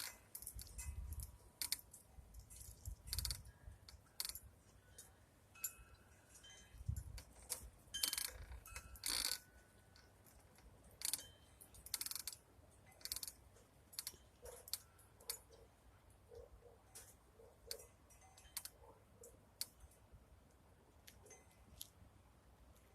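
Wind gusting on the microphone in low rumbles, mostly in the first third, under many scattered sharp clicks. A run of faint, short, evenly spaced low notes comes in the second half.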